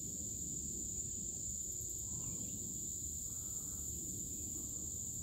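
A steady, high-pitched insect chorus droning evenly without a break, over a low rumble of background noise.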